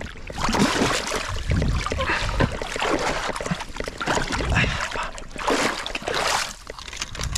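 Creek water splashing and sloshing close by as a person swims through a deep pool, in repeated surges with low thuds of water.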